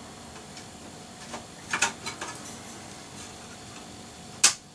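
Light clicks and taps of a memory module being handled and pushed into a RAM slot on a Compaq Deskpro 6400's motherboard, clustered a little under two seconds in, then one sharp loud click near the end as the module snaps into place.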